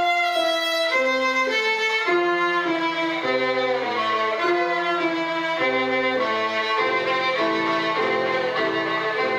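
Solo violin played with the bow, a melody of short notes changing a few times a second, accompanied by a grand piano with low bass notes.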